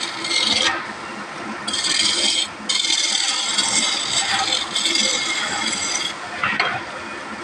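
Wood being worked by hand in several scraping, rasping strokes of about a second each, with short pauses between them. A quieter stretch and a brief scrape follow near the end.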